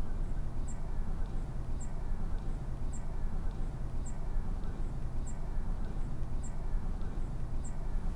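Outdoor ambience of steady wind rumble, with a faint, short high chirp repeating evenly about once a second.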